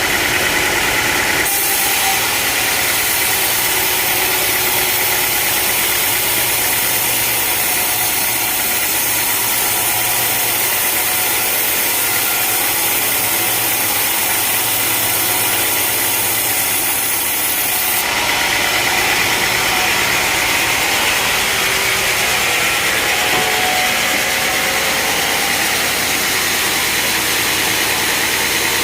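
Engine-driven sawmill machinery running steadily. About a second and a half in the sound turns hissier, and about two-thirds of the way through it shifts back.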